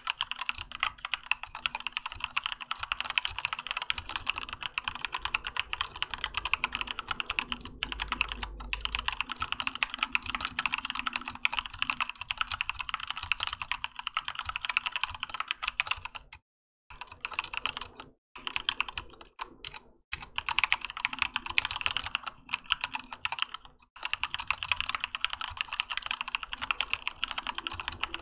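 Keychron K2 mechanical keyboard with Gateron Red linear switches and OEM-profile PBT keycaps being typed on fast and steadily, a dense run of key clicks and clacks broken by a few brief pauses, the longest about halfway through.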